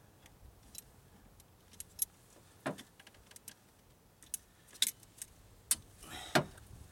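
Irregular sharp metal clicks and clinks as pliers grip and twist a GM side-post battery terminal bolt out of its cable end. The bolt is a low-profile type that is hard to get hold of. A louder click comes in the middle and another near the end.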